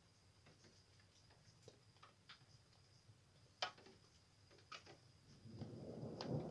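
Near silence with scattered faint ticks, then about five seconds in a low rumble of distant thunder starts and builds.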